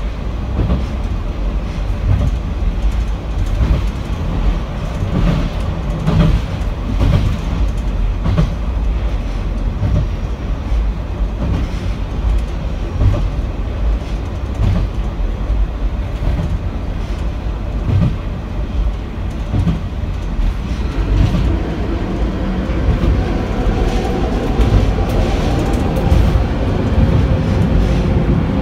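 Diesel railcar running along the track, heard from inside at the rear: a steady low rumble of engine and running gear, with the wheels knocking over rail joints. A steady whine joins in about two-thirds of the way through.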